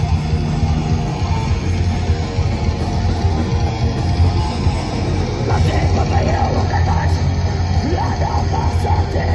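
Live thrash metal band playing loud: distorted electric guitars, bass and drums, heavy in the low end.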